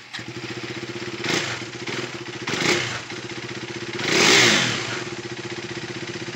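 KTM RC 390's single-cylinder engine catching on the electric starter, then idling with three quick throttle blips, the third and biggest about four seconds in, before settling back to a steady idle.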